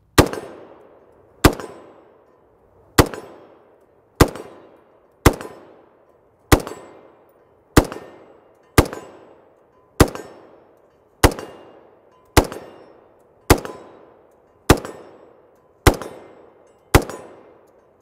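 Belgian FN FAL 50.63 paratrooper rifle in 7.62x51 NATO fired semi-automatically: about fifteen single shots at an even pace of roughly one a second, each followed by a short echo that dies away.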